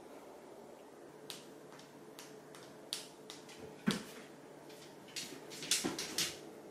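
A cat's paws and claws tapping and skittering on a hard floor as it chases and pounces, heard as scattered sharp clicks: one strong tap about four seconds in and a quick cluster near the end.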